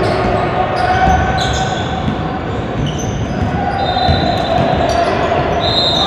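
Basketball dribbled on a hardwood gym floor, with sneakers squeaking on the court about four seconds in and again near the end, over the echoing din of a large gym.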